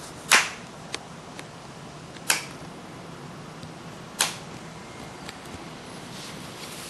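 A person fake-snoring: three short, sharp snores about two seconds apart, over a steady hiss.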